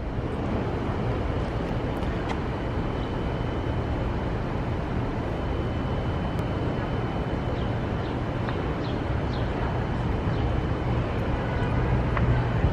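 Steady city street noise: traffic running past as a low, even rumble. A faint high steady tone runs through it, and a few short high chirps come about two-thirds of the way in.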